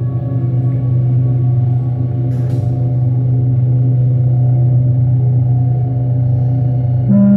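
Live electronic drone music: a steady low hum with layered held tones above it, a short hiss about two and a half seconds in, and a new, higher held tone coming in near the end.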